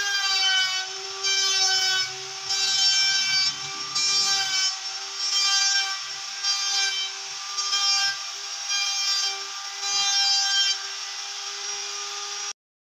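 Electric router spinning a molding bit, a steady high whine, rising and easing in regular surges about once a second as wood strips are fed past the cutter to shape a molding profile. It cuts off abruptly near the end.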